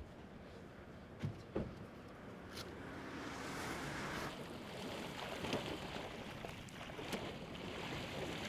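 Kayak paddles splashing and churning water, growing louder and busier after a couple of seconds, with two knocks about a second and a half in.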